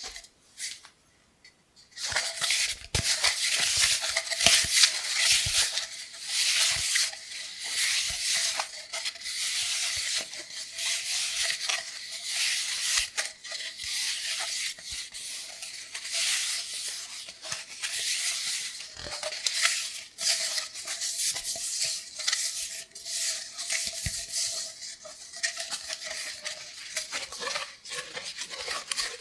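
Cardboard kitchen-roll tube being scratched, rubbed and tapped close to the microphone: a dense run of crisp scratching with frequent small taps, starting about two seconds in.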